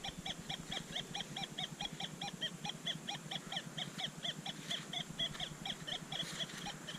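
A metal detector pinpointer beeping rapidly and steadily, about four short chirping beeps a second, as it sits close over a metal target.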